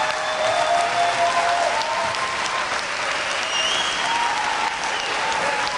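A large crowd applauding at the end of a performance, with a few voices calling out over the clapping.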